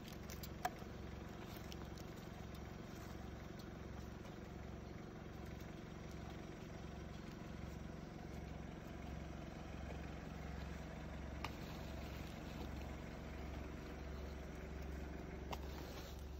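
A vehicle engine idling steadily at low level, with a sharp click about half a second in and a few faint ticks later.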